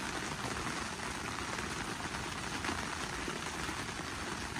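Portable propane heater burning with a steady, even hiss.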